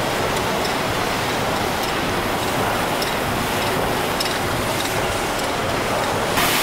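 Ellenroad Mill's cross tandem compound steam mill engine running: a steady mechanical rumble and hiss, with faint light ticks through it.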